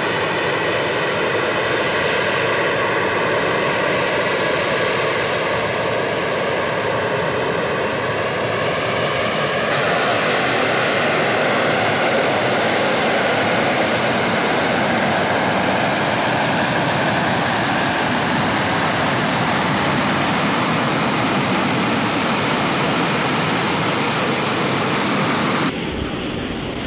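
AV-8B Harrier II's Rolls-Royce Pegasus jet engine running at hovering power: a loud, steady jet noise with a layered turbine whine. About ten seconds in, the whine gives way to a broader, even rush. Near the end the sound drops abruptly.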